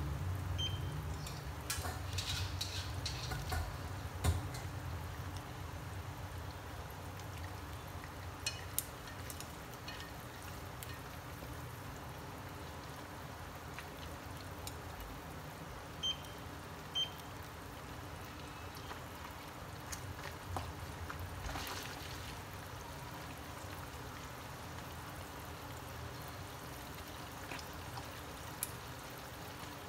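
Hot oil sizzling steadily around small whole goby fish frying in a pan, a little louder in the first few seconds. Now and then there are light clicks of wooden chopsticks against the fish and pan.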